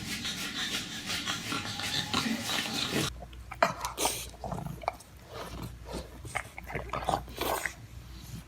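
A dog moving about, with rubbing and scraping noises. About three seconds in the background changes abruptly and scattered short clicks and scrapes follow.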